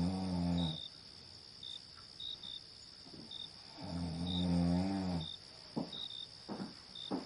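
A person snoring: one snore ends just under a second in and another long snore comes about four seconds in, followed by a few short, sharp breath sounds. Crickets chirp throughout over a steady high insect trill.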